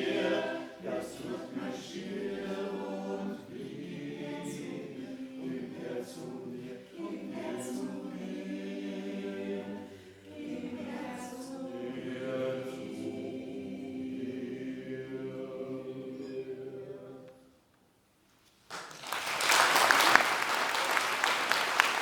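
A vocal ensemble singing a cappella in harmony, closing a song about 17 seconds in. After a second of silence, the audience breaks into applause.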